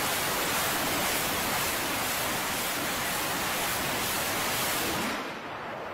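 Roar of TOS-1A thermobaric rockets launching from the launcher, a steady dense rushing noise that drops off about five seconds in.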